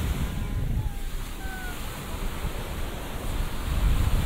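Surf washing onto a sandy beach, with wind gusting on the microphone as a low rumble that grows stronger near the end.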